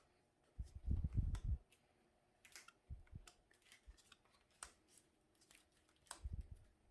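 Trading cards and booster-pack wrappers being handled: scattered soft clicks and rustles, with a couple of brief low thumps about a second in and again near the end.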